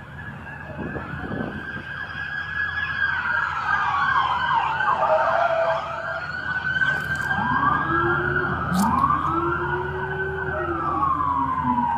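Several emergency-vehicle sirens wailing at once, their rising and falling tones overlapping. They grow louder over the first few seconds and stay loud.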